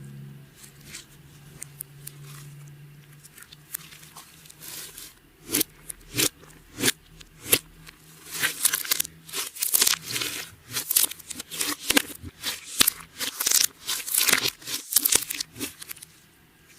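Clear slime being worked by hand: sticky crackles and popping clicks, sparse at first and coming thick and fast from about five seconds in.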